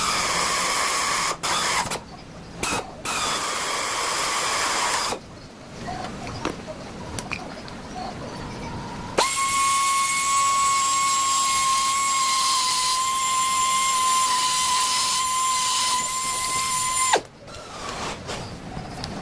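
Handheld power tool running in short on-off bursts, then one steady run of about eight seconds at a constant high whine with a hiss, cutting off sharply.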